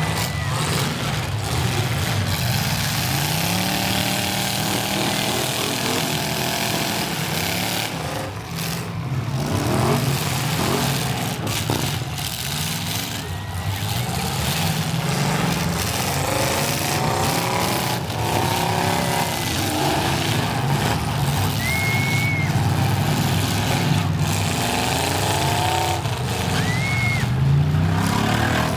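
Demolition derby cars' engines revving hard over and over, the pitch climbing and dropping in surges, over a steady din from the arena.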